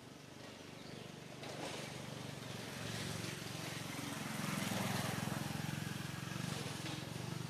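A vehicle engine running steadily, growing louder to a peak about five seconds in, then easing off a little.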